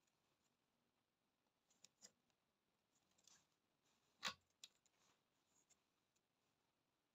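Nylon netting twine being drawn and knotted around a wooden mesh gauge by hand: faint rustles and a few soft clicks, with one sharp click about four seconds in.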